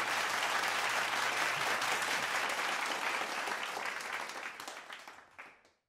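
Audience applauding, a steady patter of clapping that fades out about a second before the end.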